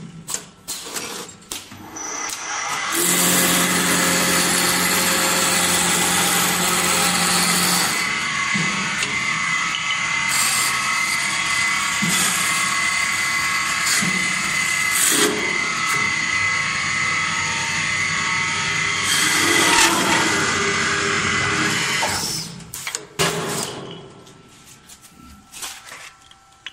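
Automatic wood lathe spinning a square wooden blank and cutting it into a round handle: a loud, steady run of motor and cutting noise from about three seconds in that changes pitch around eight seconds in and swells again near twenty. It stops about twenty-two seconds in.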